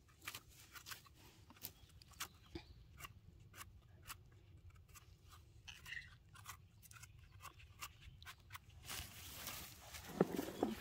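Dry forest-floor litter and twigs crackling and snapping in faint, irregular clicks as it is disturbed, with a denser rustle near the end.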